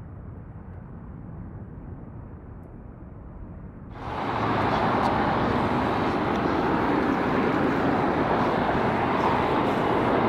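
Jet airliner engines heard from afar: a low rumble, then about four seconds in a much louder, fuller jet noise cuts in abruptly and holds steady.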